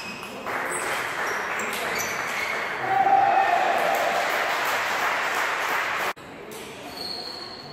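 A loud, echoing din in a table tennis hall with voices in it and the ping of a ball. It cuts off abruptly about six seconds in.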